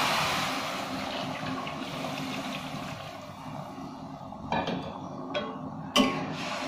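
Water poured into a pot of hot, oily spice paste, hissing and sizzling loudly at first and dying down over about three seconds. Then three sharp clicks of a metal spatula against the aluminium pot.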